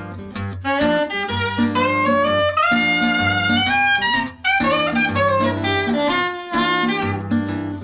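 Background music: a gliding melody line over a repeating bass and chord pattern.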